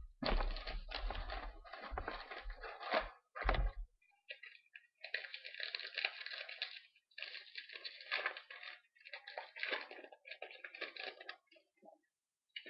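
Foil trading-card pack wrapper being torn open and crinkled in irregular crackling bursts. There are some low handling bumps in the first few seconds.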